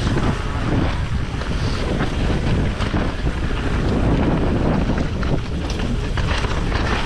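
Wind buffeting the microphone of a mountain bike descending a dirt trail at speed. Scattered short knocks and rattles from the bike run through it.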